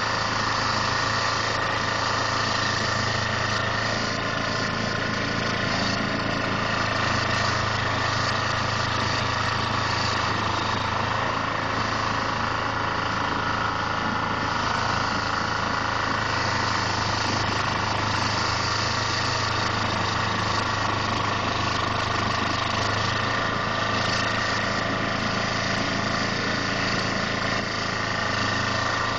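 Carlton SP4012 stump grinder running steadily at working speed, its engine under load while the cutter wheel grinds into a stump.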